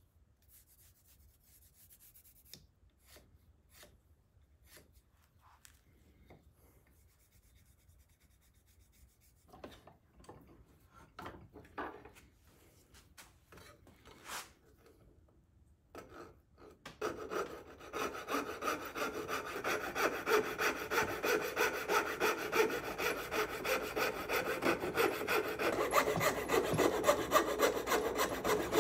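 Faint pencil scratching and handling of a wooden blank, then a coping saw cutting a curved line through the wood held in a vise. The sawing starts about seventeen seconds in as quick, even push-pull strokes, roughly two to three a second.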